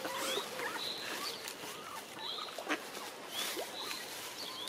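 Mallard ducklings peeping: a scatter of short, high calls, a few lower calls among them.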